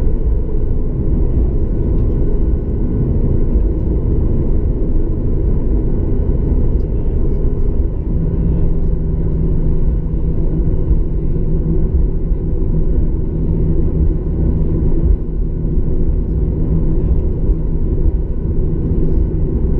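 Boeing 737-900ER cabin noise while taxiing, heard from a window seat beside the wing: its CFM56-7B engines at idle give a steady low rumble with a faint hum. A steady low tone joins about eight seconds in.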